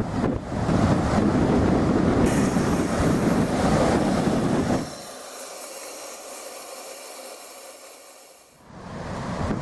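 Wind buffeting the microphone over breaking surf, a loud rumbling hiss. About five seconds in the rumble cuts out suddenly, leaving a fainter, thinner hiss of surf, and the louder noise comes back near the end.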